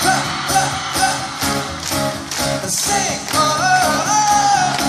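Live concert music through a PA, heard from within the crowd: acoustic guitar over a steady beat, with a sung line that steps up and is held for about a second near the end.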